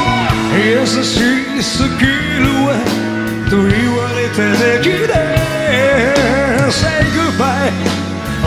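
Rock band playing an instrumental break live, with drums and bass under a lead line that bends and wavers in pitch.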